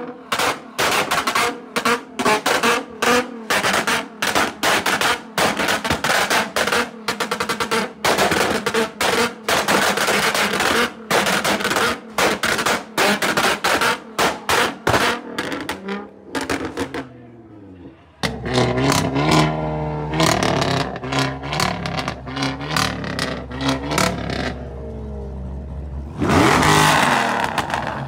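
A car revved hard at a standstill, its exhaust popping and banging in rapid, irregular sharp cracks with short gaps between them. After about sixteen seconds this gives way to music with stepped low notes over a steady bass, which swells loudly near the end.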